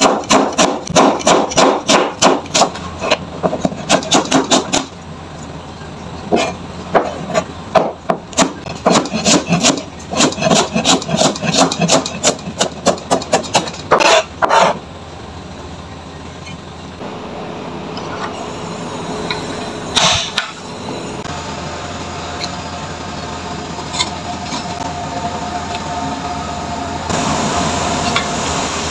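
A kitchen knife chopping vegetables on a cutting board in quick, even runs of strikes, about four or five a second, with short pauses. After about fifteen seconds the chopping stops, leaving a steadier, quieter sound and a single knock about twenty seconds in.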